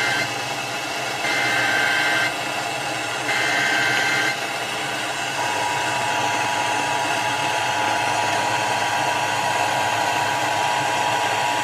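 Emergency Alert System Required Monthly Test received over the radio: the end of one burst and then two more one-second bursts of SAME header data tones, each about a second apart. About five seconds in, the steady two-tone EAS attention signal begins and runs for about six seconds, all under a constant hiss of radio static.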